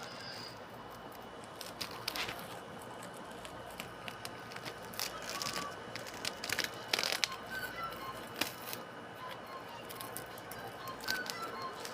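Rustling, crackling and clicking of packaging and plastic being handled, a few sharper clicks clustered near the middle, over a steady background hiss.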